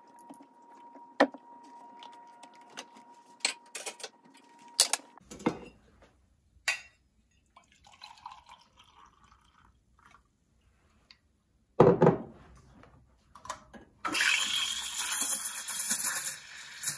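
Milk poured from a jug into a stainless steel milk pitcher, with sharp clicks and taps before it and a loud knock a few seconds later. About fourteen seconds in, an espresso machine's steam wand starts hissing loudly as it steams the milk in the pitcher.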